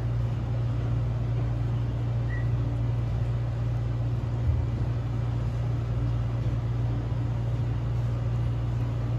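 A steady low mechanical hum, even and unchanging throughout.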